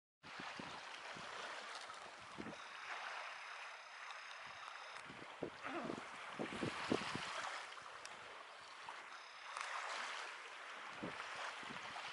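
Waterfront ambience: a steady outdoor hiss with wind buffeting the microphone in irregular low gusts, and a faint thin high tone heard twice.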